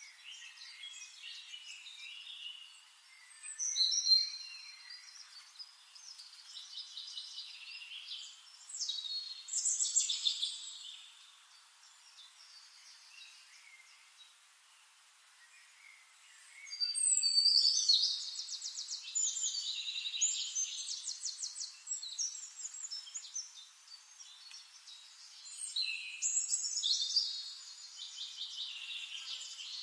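Flame-faced tanager calling and singing: high-pitched chirps and rapid trills in several loud bouts, about 4, 10, 18 and 27 seconds in, with fainter chirping between.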